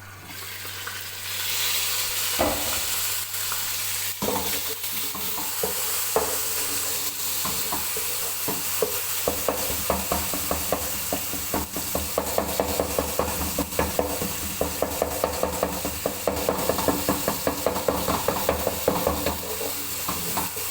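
Onions and tomatoes frying in oil in a saucepan, sizzling steadily from about a second in. Through the second half a spoon scrapes and taps against the pan in quick, regular strokes as the mixture is stirred.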